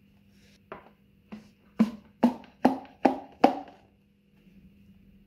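Seven hollow knocks on a cardboard Pringles can as its wooden neck piece is tapped into place. They come about two and a half a second and grow louder, then stop.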